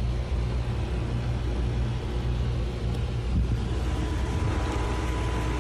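A boat cabin's air conditioner running with a steady low hum and rumble. A faint steady high tone joins about halfway through.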